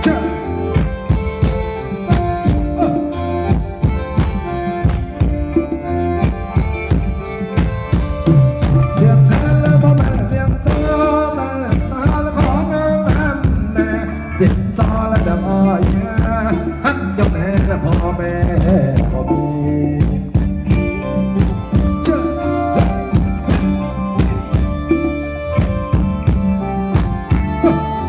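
Isan-style Thai folk dance music from a live band for ram khaen dancing, with a steady, even drum beat under a sustained melody.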